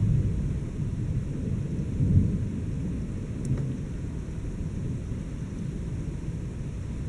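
Thunder rumbling deeply in a thunderstorm, swelling about two seconds in and then slowly dying away, with rain behind it.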